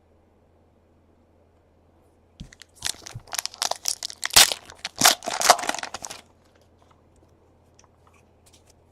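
A trading-card pack wrapper being torn open and crinkled: about four seconds of crackling tearing that starts about two and a half seconds in and stops abruptly, followed by faint handling ticks.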